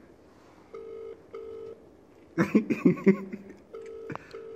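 A mobile phone on speaker playing the UK ringback tone while a call rings out: two double rings about three seconds apart, each a pair of short steady buzzing tones. Between them comes a short, loud burst of a person's voice.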